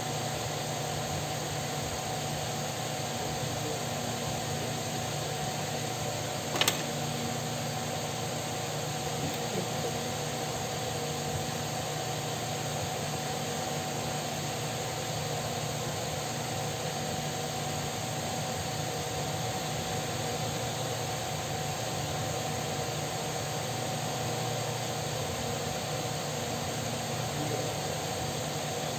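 Steady whooshing hum of an electric fan running, with a single sharp click about six and a half seconds in.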